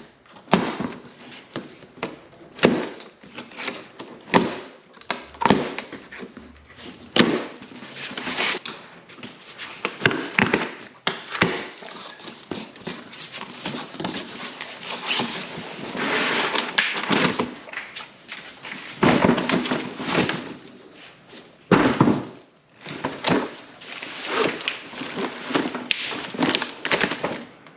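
Repeated thunks and knocks, with rustling stretches in between, as a Guniwheel dolly wheel and its packaging are handled and set down.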